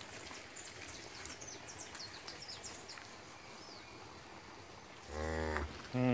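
A cow gives a short, low moo about five seconds in, then a brief second one right at the end. Small birds chirp faintly earlier, over a soft outdoor hiss.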